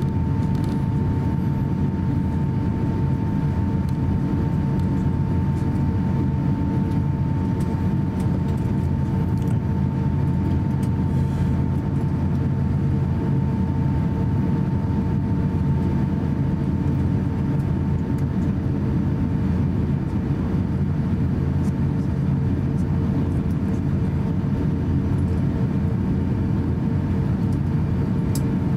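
Cabin noise of an Airbus A350-900 taxiing, its Rolls-Royce Trent XWB engines near idle: a steady low rumble with a steady two-note hum.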